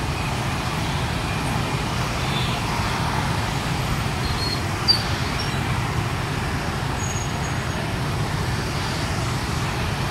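Dense rush-hour traffic in a jam, mostly small motorbikes with cars among them, making a steady mass of engine rumble. A short, sharp high sound stands out about five seconds in.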